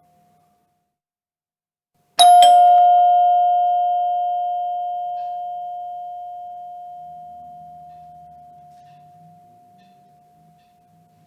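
Doorbell chime struck once about two seconds in: a single bright bell tone that rings on and fades slowly over about nine seconds.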